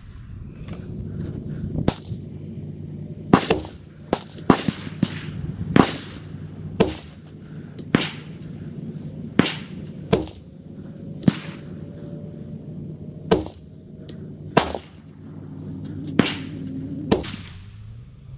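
Rifle gunfire: about fifteen sharp shots at irregular spacing, roughly one a second. The shots come from a short-barrelled AR-15 with a 12.5-inch chrome-lined barrel firing 69-grain .223 match ammunition, and from other shooters on the range.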